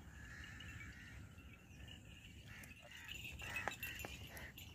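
Faint farm-field ambience with birds chirping, and from about three seconds in a few sharp clinks and knocks as the yoked pair of bulls and their wooden plough pass close.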